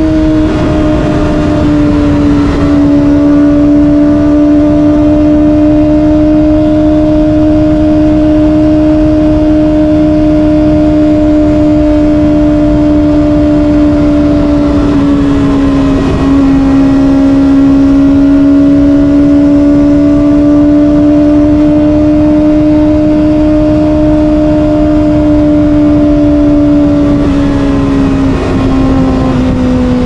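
Kawasaki ZX-25R's 250 cc inline-four running at high revs through an SC-Project exhaust, a steady high-pitched note over wind rush. The pitch dips briefly twice, a few seconds in and about halfway through, and falls near the end as the bike slows.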